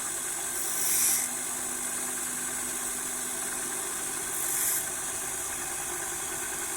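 Bench grinder motor running steadily while a twist drill bit is resharpened on it. Twice, about a second in and again around four and a half seconds, the bit touches the wheel and gives a short grinding hiss.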